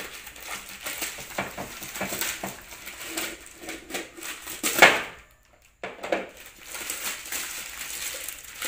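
Orange plastic shipping pouch rustling and crinkling as it is handled and pulled off a white plastic pot, with a sharp loud crackle about five seconds in and a brief pause just after.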